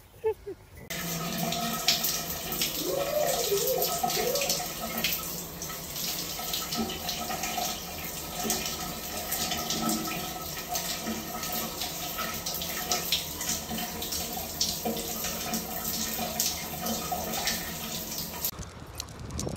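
Shower water spraying steadily behind a wet glass shower door. It starts about a second in and stops shortly before the end, with a brief wavering whine around three seconds in.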